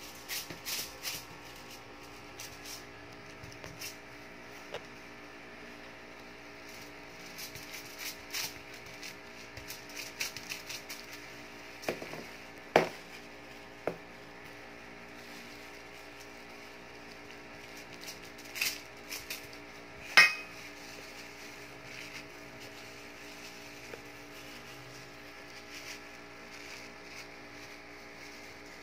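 Scattered clinks and knocks of a spoon against a stainless steel mixing bowl, with light rustling of aluminium foil, as ground-pork mixture is scooped out and spread. Two sharper knocks stand out, one near the middle and one about two-thirds through, over a steady low hum.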